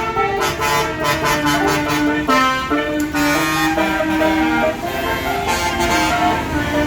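Basuri telolet musical air horn on a bus, playing a melody: a quick run of short notes, then longer held notes stepping up and down in pitch.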